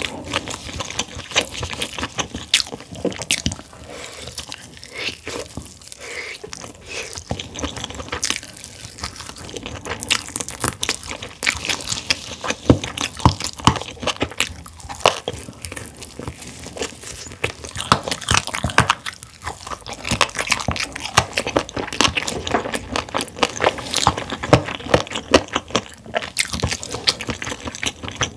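Close-miked biting and chewing of a sauce-glazed roasted chicken drumstick: a steady run of short, irregular mouth clicks and wet smacks.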